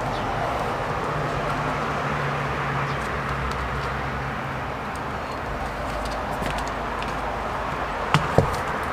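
Steady background rumble and hiss, with a low hum through roughly the first half. Near the end come two sharp knocks a fraction of a second apart.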